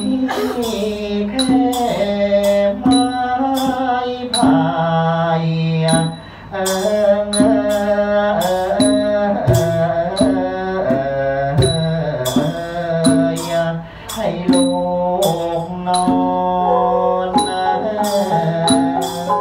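Thai-style music: a stepping melody with a regular beat of sharp, high metallic clicks, each with a short ring.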